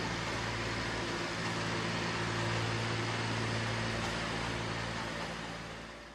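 Ride-on groundskeeping machine on a football pitch running with a steady engine-like hum, fading out near the end.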